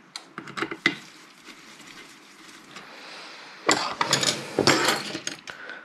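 Screwdriver and the metal chassis parts of a bench power supply clicking and rattling as alignment screws are fitted: a few sharp clicks near the start, then a louder run of knocks and rattles from just under four seconds in.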